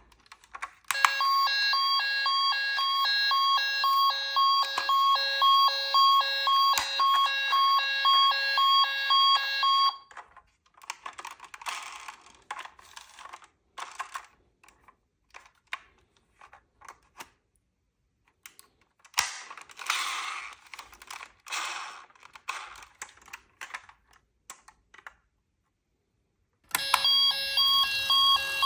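A battery-powered toy ambulance's electronic siren sounding as a pulsing beep at one steady pitch; it stops about ten seconds in and starts again near the end. In between come scattered plastic clicks and rattles of toy cars being handled.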